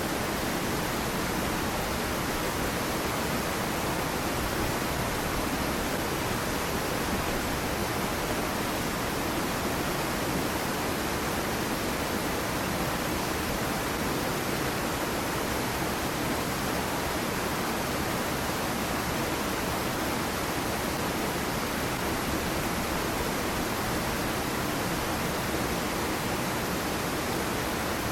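Small waterfall on a stream splashing steadily into the water below: an even, unchanging rush of water.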